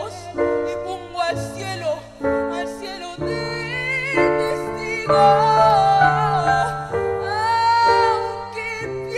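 Live ballad: a young male singer's voice holds long, wavering notes into a stage microphone over sustained keyboard chords and a band.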